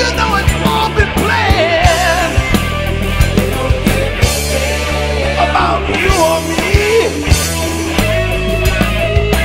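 Funk-rock song in the style of 70s soul-rock: a steady drum beat and bass under a wavering, bending lead melody.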